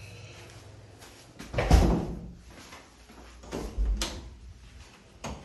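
A door being shut: a heavy thud about two seconds in, then a second knock ending in a sharp latch click, and one more click near the end.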